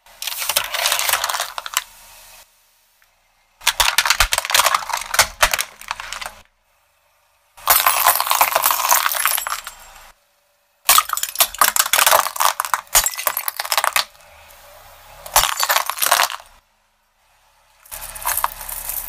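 A car tyre rolling over and crushing objects on concrete in several separate bursts of dense crunching and crackling, each a few seconds long with short silences between. The objects include aluminium soda cans pressed onto a bed of nails, rubber toys, and, near the end, a pile of copper coins clinking under the tyre.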